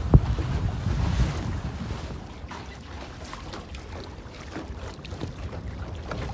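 Wind buffeting the microphone and water splashing against the hull of a small PocketShip sailboat, with a sharp knock just after the start. After about two seconds the wind rumble drops away, leaving irregular slaps and splashes of choppy water.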